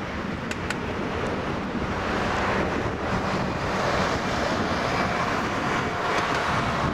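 Boeing 787-8's twin GEnx turbofan engines at takeoff power, heard from a distance as a steady roar that swells from about two seconds in while the jet accelerates down the runway.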